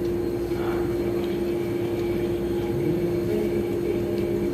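A steady mechanical hum with one constant pitched tone over a low rumble.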